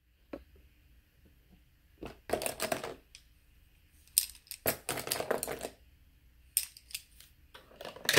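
Makeup brushes clicking and clattering against each other and their holders as they are handled and dropped in, in a few short flurries: about two seconds in, through the middle, and again near the end.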